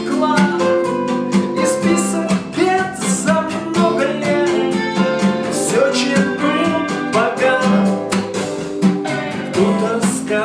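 Acoustic guitar strummed along with a pre-recorded backing track played through a small speaker, with a man singing over it.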